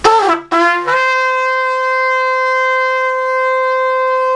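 Long twisted-horn shofar, freshly repaired and tuned, blown hard. Two short notes come first, the first sliding down in pitch. About a second in it jumps up to one long steady blast.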